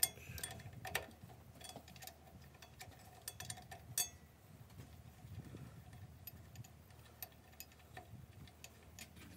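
Hand wrench working a U-joint strap bolt loose on a truck's differential pinion yoke: faint, irregular metallic clicks and ticks as the wrench is turned and reset on the bolt, the sharpest at the start, about a second in and about four seconds in.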